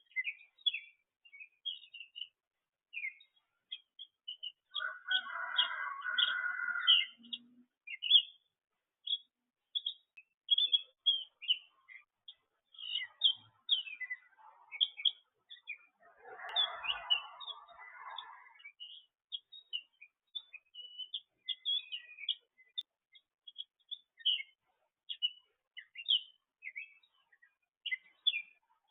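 Small birds chirping, a steady stream of short, high chirps and tweets from several birds at once. Twice, about five and sixteen seconds in, a longer, lower, rougher sound lasts around two seconds.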